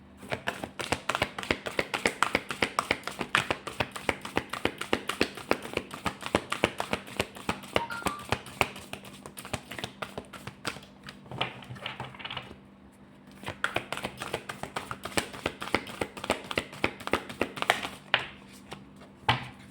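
A deck of oracle cards being shuffled by hand: a rapid run of card clicks and flicks. It pauses briefly about two-thirds of the way through, then resumes.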